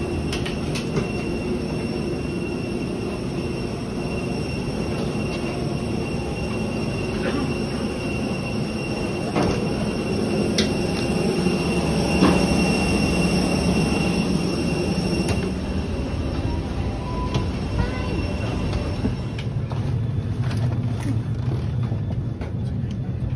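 Airport people-mover train running, a steady rumble with a high electric whine; the whine drops away about twenty seconds in as the train slows.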